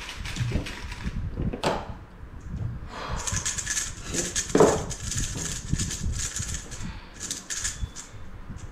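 Plastic 3x3 speed cube being turned by hand, a rattly clicking in runs of quick turns, with a single louder knock about halfway through.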